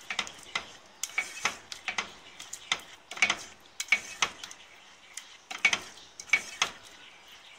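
A spoon stirring thick tomato pizza sauce in a nonstick pot, scraping and knocking against the pot in irregular strokes, about two a second.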